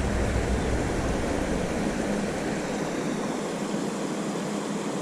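Steady rush of water pouring over a small creek spillway, with a low rumble underneath that fades out about halfway through.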